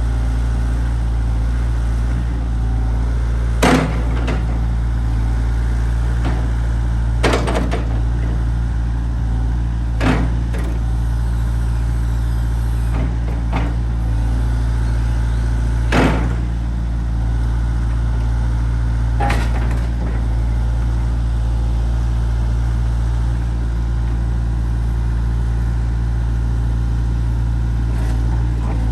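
Komatsu PC80MR compact excavator's diesel engine idling steadily, with a sharp clunk every few seconds, about six in all.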